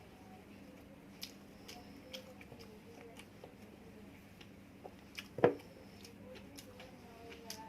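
Close-up eating sounds: a person chewing food with soft wet mouth clicks, and one louder sharp click or crunch about five and a half seconds in.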